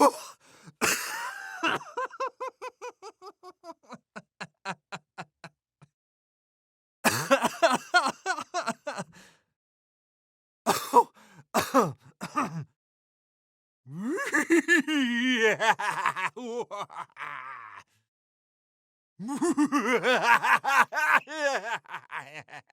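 Human laughs played one after another, separate clips with short silences between. The first laugh trails off into fading chuckles over about six seconds. Four more laughs of two to four seconds each follow, the later ones higher-pitched and more rapid.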